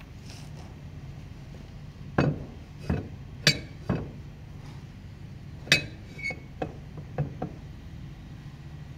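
Metal tool clinking and knocking against the jet pump housing of a personal watercraft during impeller removal: about ten sharp, irregular strikes starting about two seconds in, over a steady low hum.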